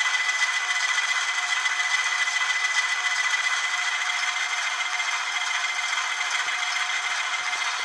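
An ESU LokSound 5 Micro sound decoder playing an ALCO 6-539T turbocharged diesel engine sound through a tiny 8x12 mm sugar cube speaker in an N scale RS-1 model locomotive. It runs steadily, thin and without any bass.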